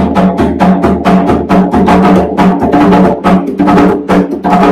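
Bomba barrel drum played by hand at a fast pace, about six strokes a second, in the seis corrido rhythm.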